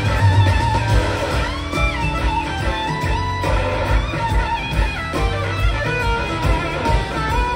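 Blues-rock band playing live, instrumental: a slide electric guitar leads with gliding notes over bass and a steady drum beat.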